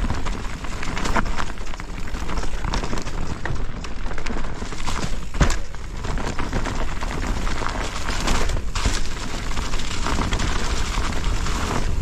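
Specialized Kenevo Comp e-mountain bike riding down a rough trail: tyres rolling over dirt and roots and the bike rattling with many sharp knocks, one loud knock about five and a half seconds in. Wind rumbles steadily on the microphone.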